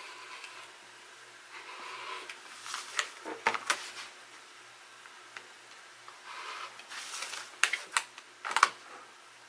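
Rotary cutter blade rolling through paper vacuum-bag filter against a cutting mat in several short scraping strokes, with paper rustling and a few sharp clacks as the acrylic ruler and cutter are handled, the loudest clacks near the end.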